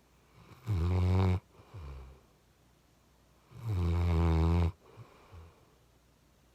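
Chocolate Labrador puppy snoring in its sleep: two loud snores about three seconds apart, the second longer, each followed by a softer breath.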